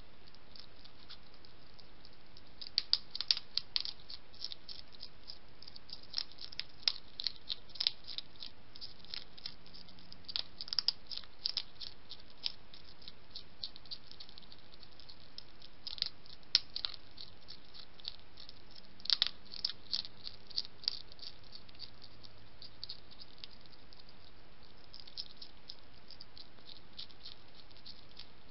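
Hedgehog chewing dry kitten biscuits: irregular clusters of sharp crunching clicks, with pauses between bursts, over a steady hiss.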